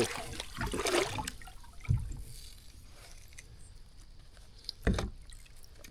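Water splashing and trickling at a kayak's side while a caught catfish is handled, with two dull knocks, about two and five seconds in.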